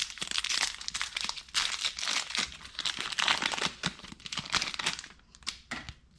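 Baseball card pack wrapper crinkling and tearing as it is pulled open by hand, a dense crackle that thins to a few light ticks near the end.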